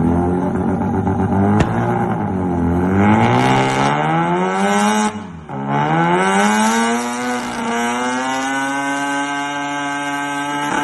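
Car engine being revved: the pitch dips and climbs, holds high, drops sharply about five seconds in, climbs again, and settles to a steady high hum for the last few seconds.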